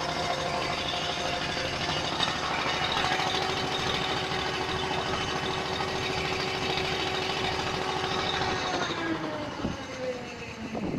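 Boat engine running at a steady speed, then throttled back near the end, its pitch falling as the boat slows.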